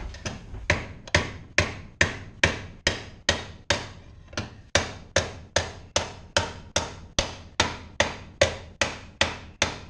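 Dead blow hammer beating a metal fender bracket held in a bench vise: a steady run of blows, about two and a half a second, with a short pause about four seconds in.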